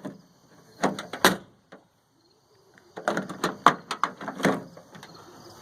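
Car door handle being worked: a 1971–73 Mustang push-down handle on a reworked latch assembly, fitted temporarily without a brace. The latch clicks twice, then clatters in a run of clicks and knocks as the handle is pushed and the door released and shut.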